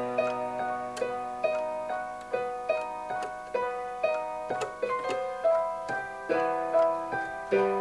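Casio electronic keyboard played with both hands on a piano voice: a melody of struck notes, about two to three a second, each fading, over lower notes held at the start and again near the end.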